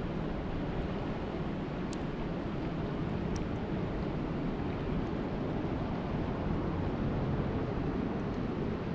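Steady rush of wind and water at a lake shore, strongest in the low end, with a couple of faint high ticks.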